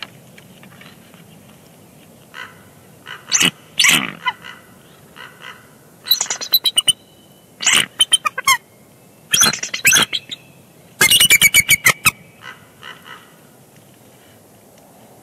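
Bald eagles calling at the nest during a shift change: several bursts of high, rapid chittering notes. The longest is a fast run of piping notes about eleven seconds in.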